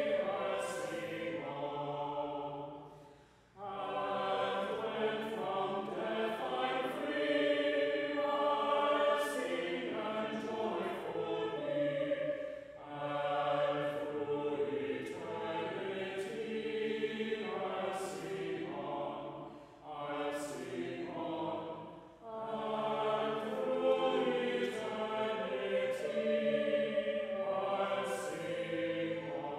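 Mixed choir of men's and women's voices singing sung words in phrases, with a few short pauses between phrases.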